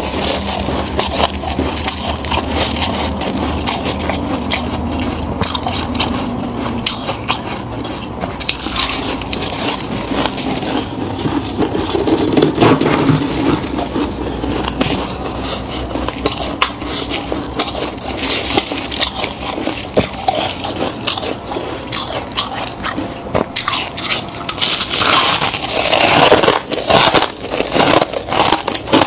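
Freezer frost crunching and crackling as gloved hands scrape it from inside a chest freezer and pack it into a ball. Near the end come crisp bites into the packed frost.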